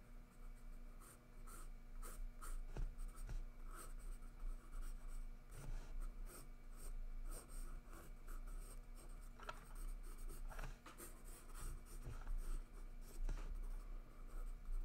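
Graphite pencil scratching on sketchpad paper in many quick, short, irregular strokes while sketching curly hair.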